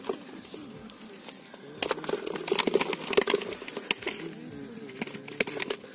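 Wet cast net being lifted and handled on a muddy bank: a quick run of small clicks and rustles from about two seconds in, and a few more near the end.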